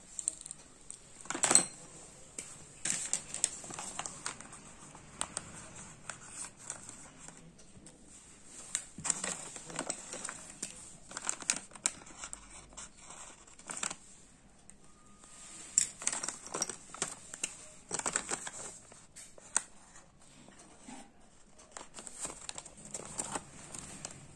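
Paper rustling and crinkling, with scattered irregular clicks and taps of plastic marker pens being picked up and handled.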